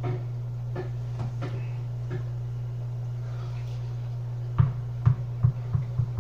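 A steady low hum with a few faint clicks, then a quick run of about six sharp knocks near the end.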